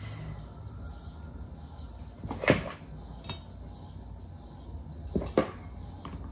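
Three sharp knocks of a fork against dishware as shredded chicken is scooped onto a tortilla: one about two and a half seconds in, then two in quick succession near the end, over a low steady hum.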